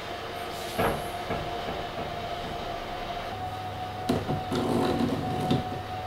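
A steady hum with a thin tone runs throughout, deepening about three seconds in. Short knocks and clicks come about a second in and again between four and five and a half seconds, as a hand works a bathroom shower mixer's ON/OFF dial.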